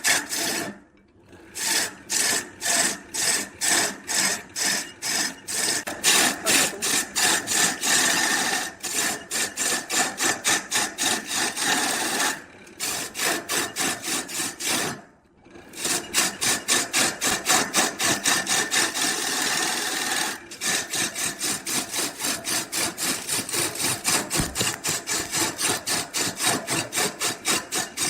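Wood being worked with a hand tool in rapid back-and-forth strokes, about two to three a second, with a few short pauses.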